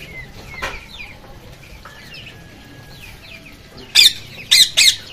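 Chickens and caged birds calling: faint chirps and clucks, a single knock under a second in, then three loud, sharp squawks from about four seconds in.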